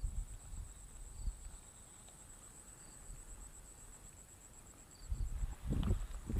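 Steady high-pitched insect trill, pulsing fast, with a short faint chirp about every one and a half seconds. From about five seconds in, low thumps and rumble come in and grow louder.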